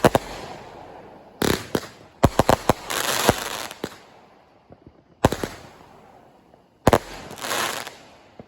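Aerial firework shells bursting in a series of sharp bangs, several in quick succession, some followed by about a second of crackling.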